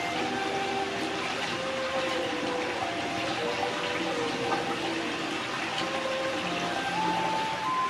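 Hot-spring water pouring from a spout into a stone outdoor bath and spilling over its rim: a steady rush of running, splashing water.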